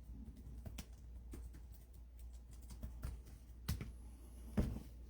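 Faint, irregular light clicks and taps, with two sharper knocks about three and a half and four and a half seconds in, over a low steady hum.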